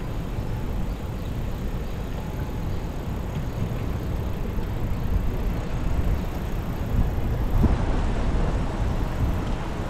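Wind rumbling on the microphone of a camera riding on a moving bicycle, with road noise and a few low bumps about seven seconds in.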